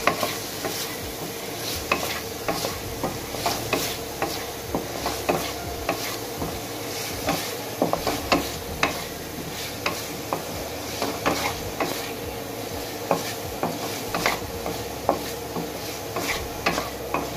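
Chicken pieces frying in oil with spices, sizzling steadily, while a spoon stirs them and knocks and scrapes against the pan in irregular clicks about once or twice a second.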